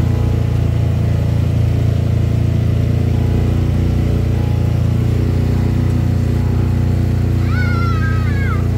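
Motorboat engine running steadily at cruising speed. Near the end, a short high-pitched wavering call rises and falls once over it.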